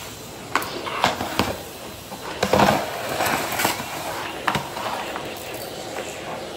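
Vacuum cleaner running with its floor tool pushed over a mat and concrete, picking up light crunchy debris. Scattered sharp clicks and rattles of grit being drawn into the head and wand, strongest about two and a half seconds in.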